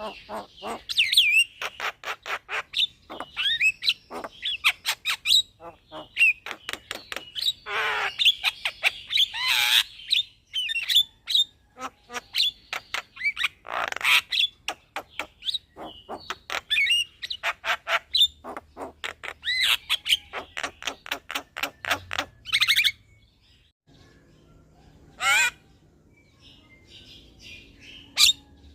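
Javan myna (jalak kebo) singing a long, rapid run of chattering notes mixed with harsh squawks and gliding whistled calls. The song breaks off about 23 seconds in, with one more loud call a couple of seconds later.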